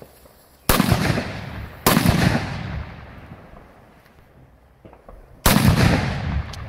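Three loud firework salute bangs, the first two about a second apart and the third a few seconds later, each trailing off in a long echo.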